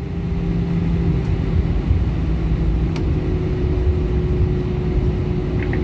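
Cabin noise of an Airbus A320-214 taxiing, heard from a window seat beside the wing: a steady low rumble from the CFM56 engines at taxi power, with a steady hum running through it.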